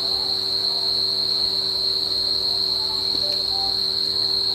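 A steady high-pitched trill held on one pitch without a break, with a faint low hum beneath it.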